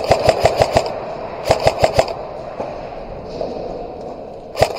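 Airsoft gun firing rapid full-auto bursts, about seven shots a second: a burst that stops just under a second in, another about a second and a half in, and a short one at the very end.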